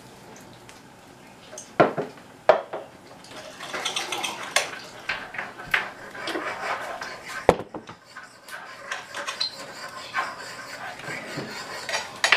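Knives and forks clinking and scraping on dinner plates as a meal is eaten, with dishes knocked down on a wooden table now and then; the sharpest knock comes about seven and a half seconds in.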